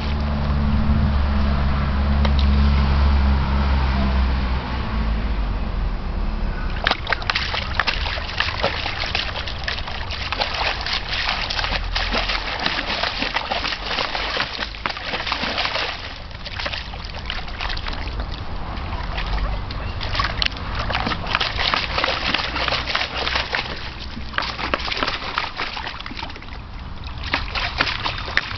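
A Briard pawing and digging at the water in a plastic tub, with repeated irregular splashing and sloshing. A low rumble lies under the first six seconds or so.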